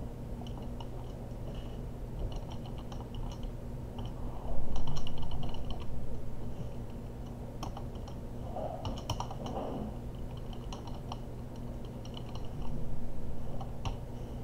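Computer keyboard typing in short bursts of clicks over a steady low electrical hum. A louder, softer noise swells up suddenly about four and a half seconds in and fades over a second or so, and a smaller one comes near the end.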